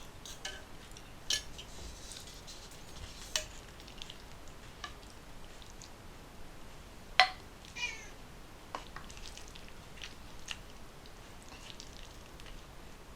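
A cat gives one short falling meow near the end, among scattered light clicks and knocks; the loudest click comes about seven seconds in.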